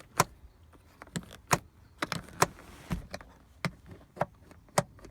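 Irregular sharp clicks and taps, about one or two a second, from small hard parts of a car rear-seat latch being handled.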